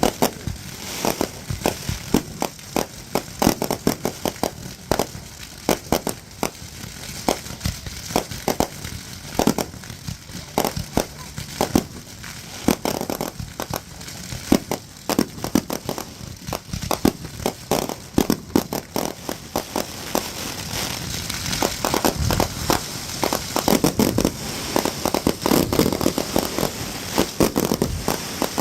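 Consumer fireworks going off: a dense, rapid run of crackling pops, with heavier bangs mixed in toward the end.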